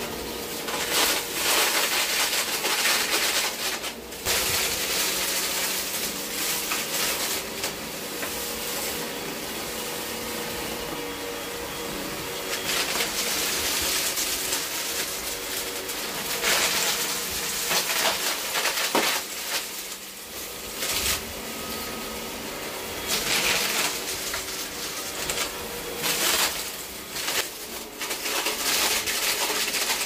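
Hoover Breeze Evo upright vacuum cleaner running steadily, with louder hissing surges every few seconds as it is pushed through a pile of sand, grit and fluff on carpet.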